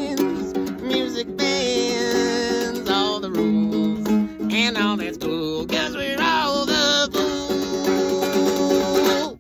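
A man singing with vibrato over a strummed acoustic guitar. The song ends near the end and the sound cuts off.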